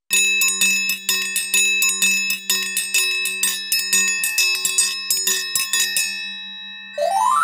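A metal triangle struck rapidly, about five strikes a second, its bright ringing building up for about six seconds and then dying away. Near the end a short rising glide in pitch sweeps upward.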